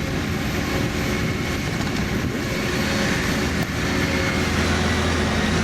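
Komatsu HB215 Hybrid excavator running steadily, an even machine noise with no change in pitch.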